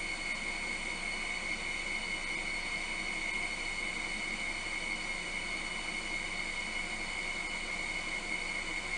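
Steady room noise from an air conditioner: an even hiss with a thin, steady high whine.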